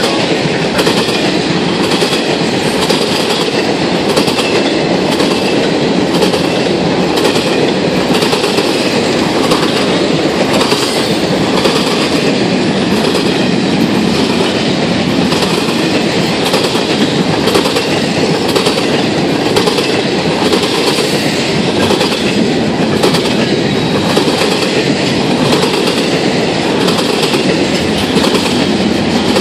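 Freight train cars rolling past close by, a loud steady rumble with the wheels clacking in an even rhythm as they cross the railroad diamond.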